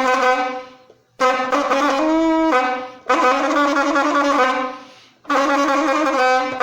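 Homemade vuvuzela, a bottle with a stretched balloon membrane as the reed, blown in long buzzing blasts: one fades out about a second in, then three more follow with short gaps, and the second briefly jumps up in pitch. With the balloon fitted it has a slightly deeper tone.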